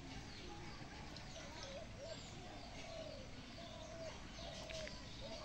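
Faint birdsong: one bird repeats a short, low call again and again, with a few high chirps from other birds.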